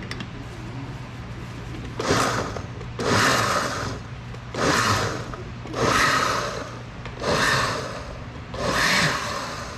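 Countertop blender pulsed six times in short bursts, each under a second, chopping a pepper sauce of peppers, garlic, onion, cucumber and lime. The pulses are kept short so the mix stays chunky rather than minced fine.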